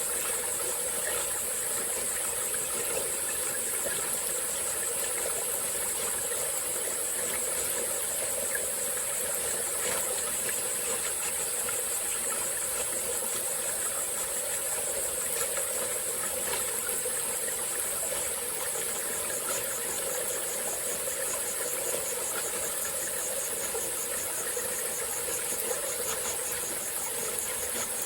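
Small tropical-forest stream flowing and trickling, under a steady high-pitched insect chorus. About two-thirds of the way in, a rapidly pulsing insect call joins.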